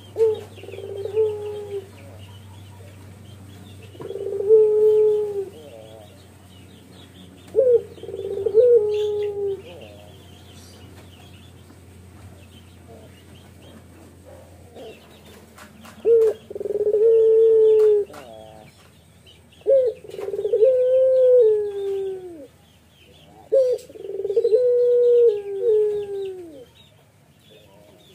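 Male puter pelung, a long-voiced strain of Barbary dove, cooing as it bows and nods its head: six long, rolling coos a few seconds apart, the later ones drawn out longer. Faint chirping of small birds sounds behind.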